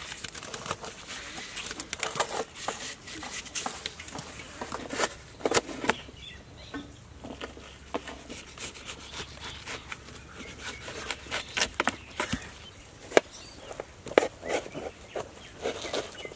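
Kitchen knife cutting through watermelon on a metal plate: irregular sharp cutting clicks and crunches, sparser for a few seconds in the middle.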